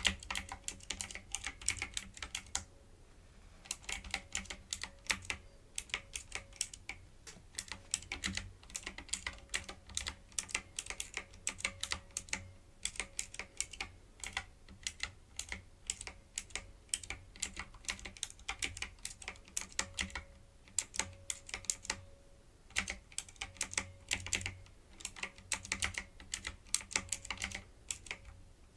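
Typing on a typewriter-style keyboard: fast runs of key clicks broken by a few short pauses.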